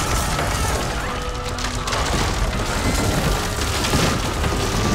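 Cartoon action sound mix: dramatic background music over steady rumbling booms and crashing debris as a structure breaks apart and smoke billows.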